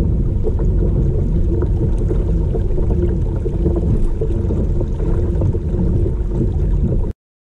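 Water lapping and splashing along the hull of a kayak under way, under a steady low rumble of wind on the microphone. The sound cuts off abruptly near the end.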